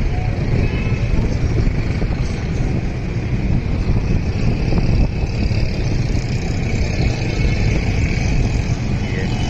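Steady low rumble of road traffic from the busy streets around the monument, with no distinct single event standing out.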